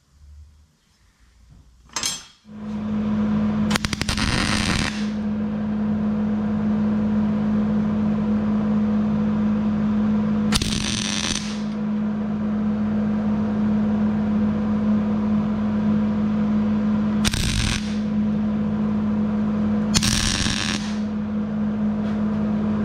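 Electric arc welding on a steel bracket: a continuous crackling buzz over a steady hum that begins about two and a half seconds in, with brief louder flare-ups a few times.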